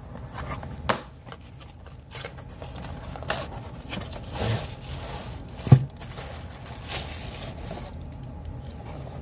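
Unboxing sounds: a cardboard box being handled and tipped, and a plastic-wrapped carrying case slid out of it, with cardboard scraping, plastic crinkling and a few knocks, the loudest knock a little past halfway.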